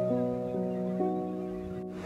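Soft instrumental background music of held notes, with the chord changing a couple of times.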